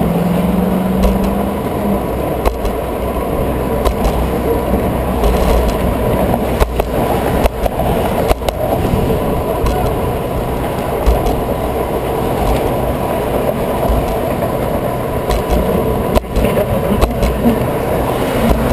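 Wind buffeting the microphone of a bicycle-mounted camera while riding, over the steady sound of road traffic passing in the lanes alongside. A short steady tone sounds in the first two seconds, and a few sharp knocks come near the middle and again later on.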